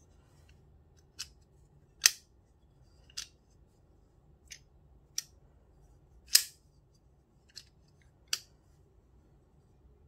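Folding knife with a D2 steel blade on ball bearing washers being flipped open and shut by hand, giving about eight sharp metallic clicks as the blade snaps into place. The two loudest come about two seconds in and a little past the middle.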